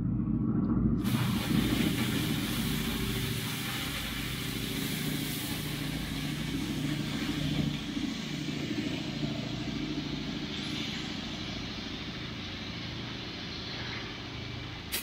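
Water from a garden hose spraying into a hot steel smoker cook chamber and hissing as it flashes to steam, starting suddenly about a second in and continuing steadily. Under it an airplane passing overhead drones steadily.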